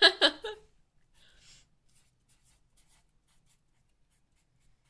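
Pen scratching on a paper comment card: a quick run of loud strokes at the start, then fainter, scattered strokes.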